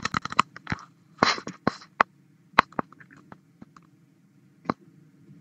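Irregular sharp clicks and taps, some in quick little clusters, over a faint steady low hum.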